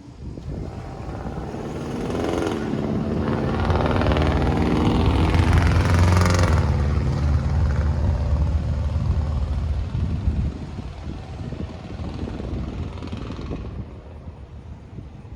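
A vehicle passing close by. Its engine hum and running noise build to a peak about five or six seconds in, the pitch drops as it goes past, and the sound fades away by about fourteen seconds.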